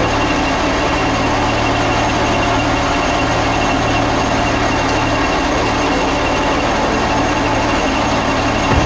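X2200-series diesel railcar running along the line: a steady drone of engine and rail noise with a constant low hum, and a brief thump near the end.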